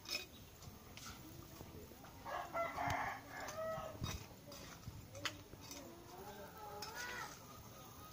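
A rooster crowing, twice: once about two and a half seconds in and again about six seconds in, with a few sharp taps between.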